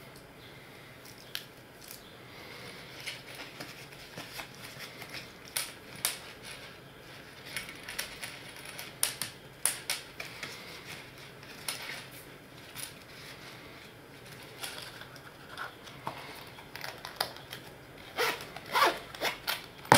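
Small clicks and rustles of an earphone cable being wound up and tucked into a small round hard-shell zip case, then the case's zipper being pulled shut near the end.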